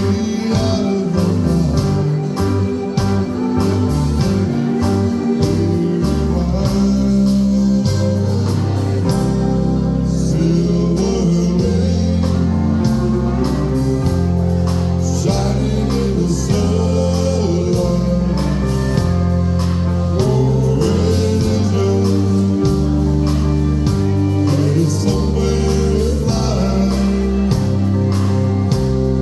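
Live band playing a country-style song: a sung vocal over guitar and a bass line whose notes change every second or two.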